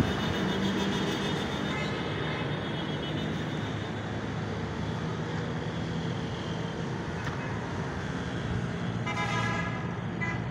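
Steady city road traffic noise, with a short vehicle horn toot about nine seconds in.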